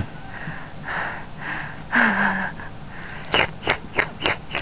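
Breathy sniffs and huffs, then about five quick wet clicks in the last second and a half: a baby smacking his lips while being fed watermelon milkshake.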